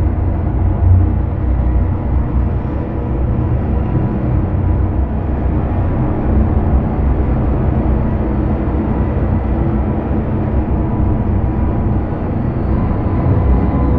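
Dark ambient soundscape: a dense, steady low rumbling drone with faint held tones above it, without beat or melody.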